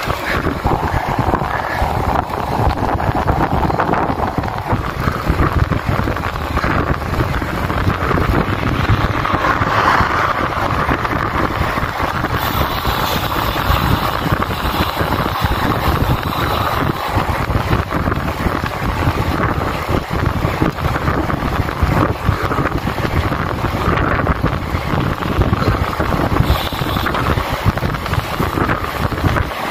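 Steady rush of wind over the microphone of a handlebar-mounted phone on a road bike riding at speed, with tyre and road noise from the tarmac underneath.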